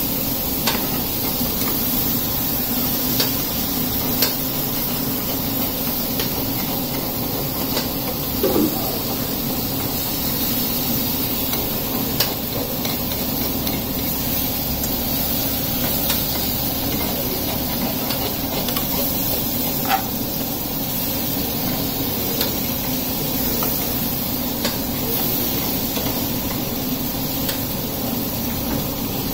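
A metal slotted ladle stirring vegetables in a black kadai over a gas flame, with a steady sizzling hiss from the pan and burner. The ladle knocks against the pan in scattered clicks every few seconds.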